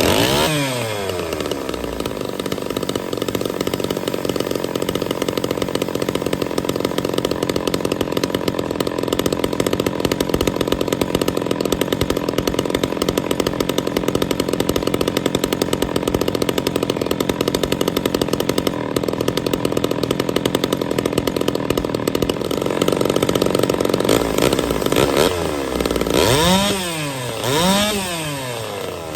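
Ported Homelite Super XL-130 two-stroke chainsaw engine bursting into life at high revs that quickly drop, then running steadily, with two quick throttle blips near the end. Its ignition timing has just been advanced and both carburettor screws are set one turn out.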